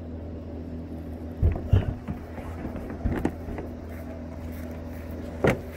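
Thumps and knocks of a kayak being carried and lifted into an SUV's open rear hatch: two loud thumps about a second and a half in, more knocks around three seconds, and a sharp knock near the end, over a steady low hum.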